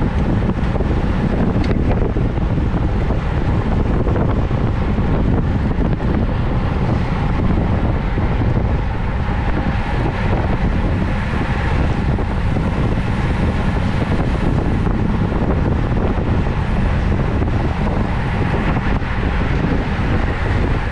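Steady wind rush buffeting the microphone of a camera mounted on a racing bicycle moving at speed, loud and unbroken.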